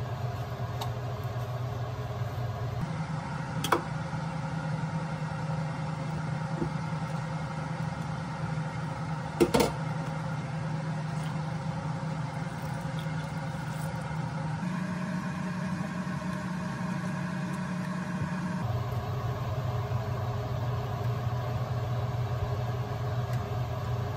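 Steady machine-like hum, most likely a kitchen appliance, changing abruptly in character a few times. Two sharp knocks stand out, about four seconds in and again near ten seconds.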